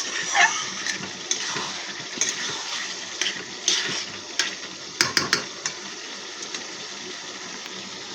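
Potatoes and spice paste sizzling and hissing in a pan of hot oil with a little water added, while a spatula scrapes through them; several sharp knocks of the spatula on the pan come about five seconds in, and the hiss eases off after that.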